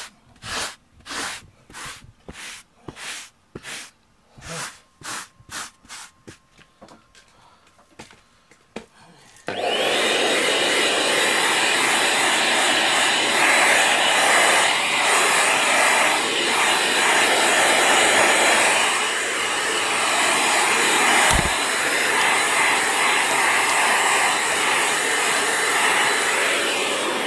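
Rhythmic rubbing strokes on a foam floor mat, about two a second, growing fainter. Then, about nine seconds in, a handheld cordless vacuum cleaner switches on and runs steadily, picking up cat hair from the mat, and stops near the end.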